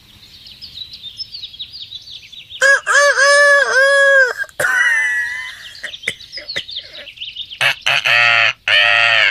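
Cartoon parrot squawking and screeching. It starts with faint quick chirps. About three seconds in comes a loud run of about six repeated squawks, then a falling cry. Near the end there is another burst of loud squawks.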